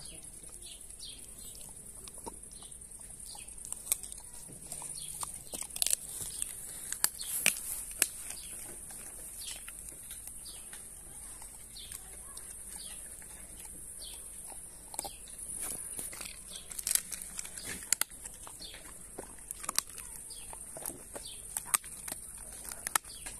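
Czechoslovakian wolfdog chewing a raw pork blade bone: irregular crunches and sharp cracks of teeth on bone, busiest twice in the middle stretch. A steady high-pitched hiss sits behind it.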